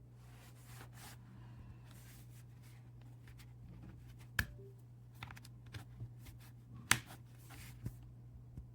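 Rustling and handling noises with a few scattered ticks and two sharp clicks, about four and seven seconds in, over a steady low hum.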